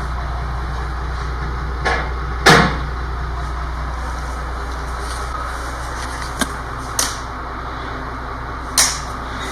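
Steady low engine drone of a crane truck running, broken by several sharp knocks, the loudest about two and a half seconds in.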